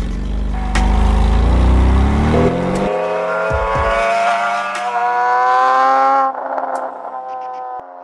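Porsche 991 Carrera S flat-six running through a Fi valved aftermarket exhaust under hard acceleration: a deep rumble at first, then the engine note climbs steadily through the revs and drops away about six seconds in.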